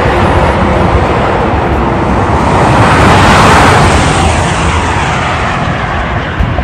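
Highway trucks passing at speed: tyre and engine noise that swells to a peak about three to four seconds in, then falls away.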